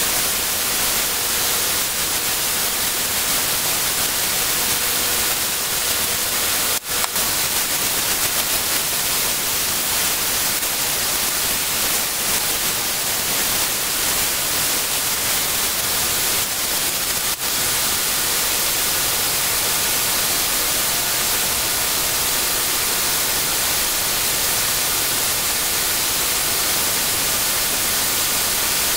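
A loud, steady hiss, with two brief dropouts about seven and seventeen seconds in.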